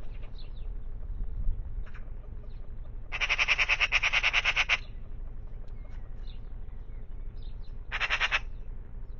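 Eurasian magpie chattering: a harsh, rapid rattle of about a second and a half, then a second, shorter rattle near the end.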